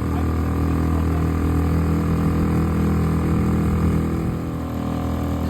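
Boat engine running at a steady pitch, easing slightly about four and a half seconds in.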